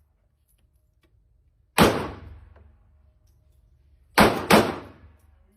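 Three gunshots: one about two seconds in, then two in quick succession near the end, each with a long echoing tail.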